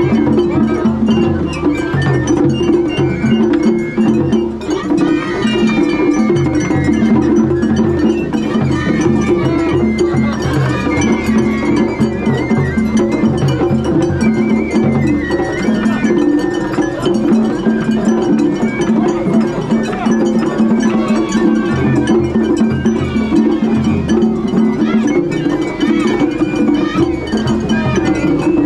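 Matsuri-bayashi festival music played on a procession float, with a metallic clanging beat, going on without a break.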